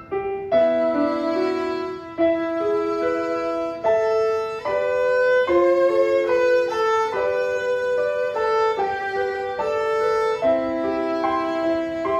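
A new violin playing a bowed melody of held notes, over a piano accompaniment. The player calls its intonation slightly out of tune.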